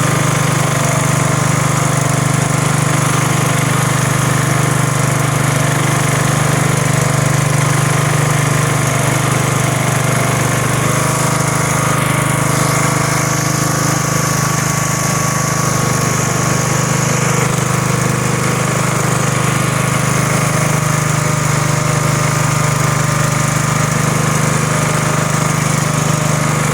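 Engine of a snow-plowing vehicle running steadily at constant speed throughout, a loud, even drone with a strong low hum.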